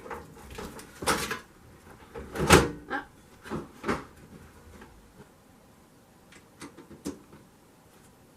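Knocks and clunks of hardware being handled: a computer power supply and its cables going into a PC case. One loud knock about two and a half seconds in, a few more around it, then lighter ticks near the end.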